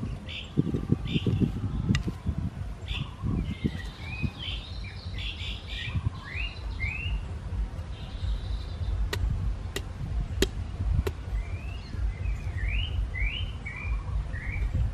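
Small birds chirping: short rising notes repeated in quick runs, over a steady low rumble, with a few sharp clicks about two-thirds of the way through.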